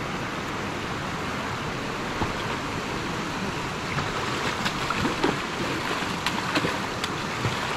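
Steady rush of a fast river's current, with sharp splashes from about four seconds in as a hooked coho salmon thrashes in the shallows at the bank.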